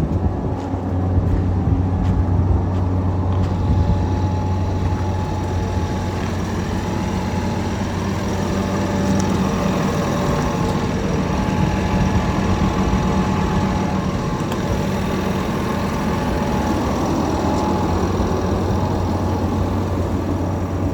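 Komatsu D65EX-17 bulldozer's six-cylinder diesel engine idling with a steady low hum.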